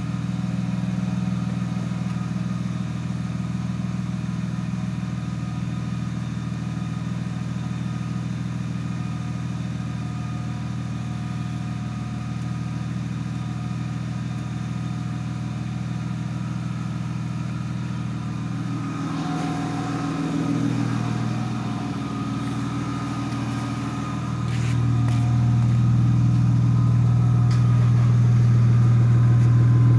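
A 1997 BMW 323i E36's M52 2.5-litre straight-six idling steadily while it warms up. A few faint clicks come through about two thirds of the way in. Just after that the engine grows clearly louder and stays louder.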